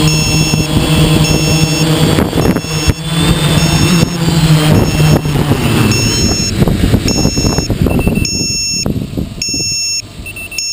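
Hexacopter's electric motors and propellers humming steadily as it flies low, then dying away about five seconds in as it comes down in the grass, followed by a crackling rustle of grass against the craft and camera. A high electronic beep repeats throughout, coming more often near the end.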